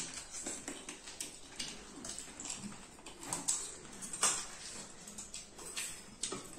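Spoons clinking and scraping in a steel bowl of pani puri filling and knocking against the crisp puri shells, in scattered short clicks, mixed with the chewing and mouth sounds of people eating pani puri.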